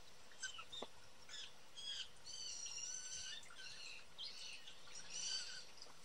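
Young blue jays calling: a run of harsh, repeated calls that starts about half a second in, the loudest about five seconds in.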